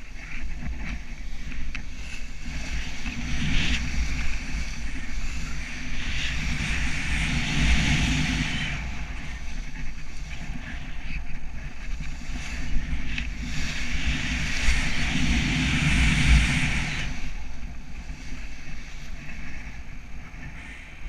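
Wind rushing over the camera microphone in paraglider flight, a constant low buffeting with a hiss that swells and fades twice as the wing banks through turns.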